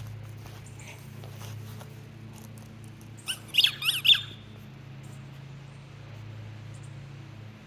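A squeaky dog toy ball squeaking four or five times in quick succession, about three seconds in, each squeak rising and falling in pitch, as the dog bites down on it. A steady low hum runs underneath.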